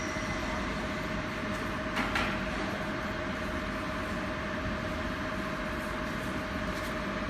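Steady running machine noise with a constant whine held throughout, and a brief knock about two seconds in.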